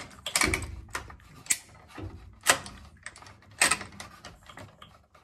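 Hand tools clicking and knocking on copper refrigerant line-set tubing, in about four sharp metallic knocks roughly a second apart, with handling noise between them.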